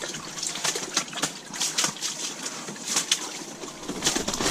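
Irregular wet clicks and splashes of water and slush on the ice of an ice-fishing shelter floor, as they are handled by hand.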